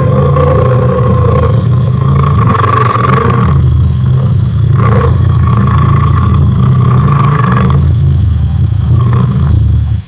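Lion roar sound effect: one long, deep, unbroken roar that holds at a steady loudness for about ten seconds and cuts off suddenly at the end.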